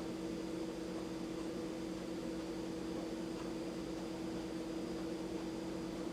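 Steady machine hum over a background hiss, with no change in pitch or level.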